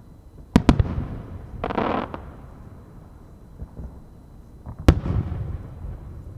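Aerial firework shells bursting. Two sharp bangs come close together about half a second in, followed a second later by a short hissing crackle. Another loud bang comes near the end, its sound dying away slowly, and a further bang lands right at the close.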